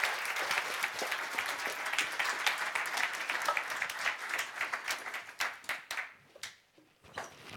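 Audience applauding. The clapping thins to a few scattered claps and dies out about six seconds in.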